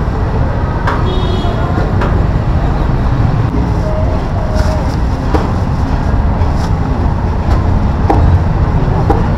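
Busy street market ambience: a steady low rumble like passing traffic, with scattered voices of people around and occasional short clicks and clatter.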